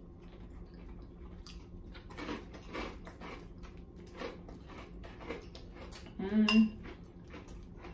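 Metal forks clicking and scraping against a glass salad bowl and dinner plates while people eat, in a steady scatter of small ticks. About six seconds in there is a short, louder hum of a voice.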